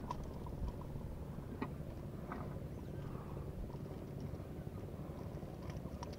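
A steady low rumble, with a few light clicks from the hooks of an artificial plug lure being worked free of a peacock bass's mouth.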